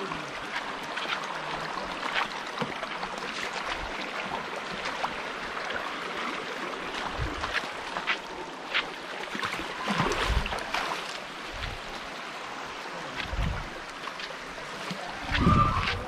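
Shallow hill stream running over stones, a steady rush of water, broken by a few short low thumps, the loudest near the end.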